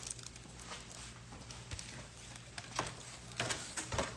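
A few faint, scattered taps and knocks from handling.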